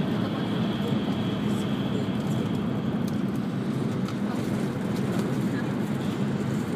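Steady running noise of an E5-series Shinkansen at speed, heard inside the passenger cabin: a low, even rumble and rush. A faint high whine over it fades out about three seconds in.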